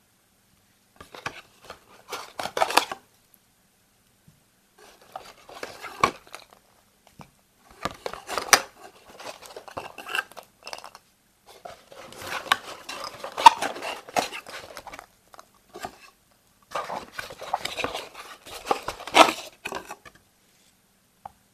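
Hands handling a folded cardboard display box and foil-wrapped Kinder Surprise chocolate eggs: bursts of cardboard scraping, foil rustling and sharp clicks as the eggs are lifted out of their compartments. The handling comes in about five spells with short pauses between them.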